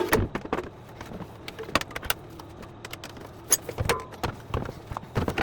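Irregular sharp clicks and knocks of an induction hob's casing and parts being handled and turned over during disassembly, a dozen or so light taps with a few louder knocks.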